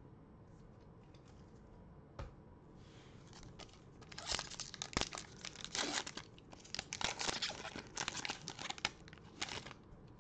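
Foil wrapper of a Panini Prizm basketball card pack being torn open and crinkled, a dense run of irregular tearing and crinkling from about four seconds in until near the end. A single short tap comes about two seconds in.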